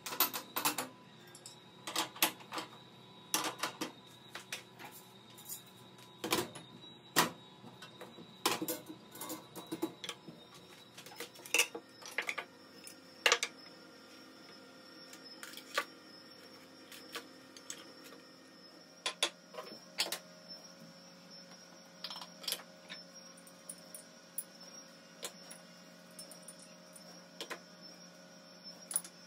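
Scattered clicks, clinks and knocks of dishes and kitchen items being handled and set down on a countertop during kitchen cleaning, over a faint steady hum.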